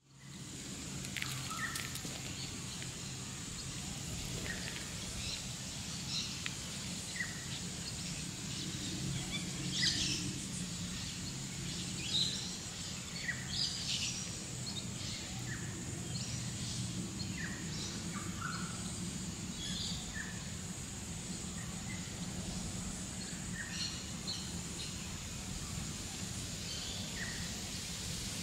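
Wild birds calling in short, scattered chirps over a steady low drone like a distant jet, which comes from a hospital nearby. A steady high-pitched tone runs underneath.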